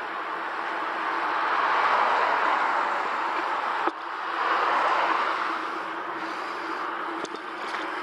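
Rush of wind and road noise from cycling along a street, picked up by the bike-mounted camera's microphone; it swells twice, with a brief dropout about halfway through.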